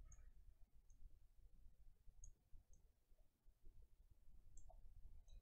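Near silence with about six faint computer mouse clicks scattered through it, from painting strokes in a texture-painting program.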